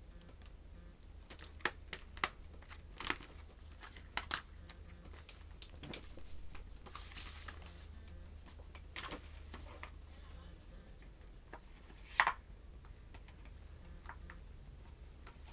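Thin plastic DVD cases being handled and closed: a scattered series of sharp plastic clicks and snaps with a stretch of rustling in the middle, the loudest snap about twelve seconds in.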